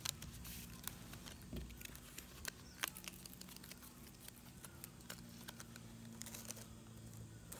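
Fresh banana leaves crinkling and rustling in the hands as a leaf parcel is folded and tied with a thin bamboo strip: scattered soft crackles and clicks over a faint low hum.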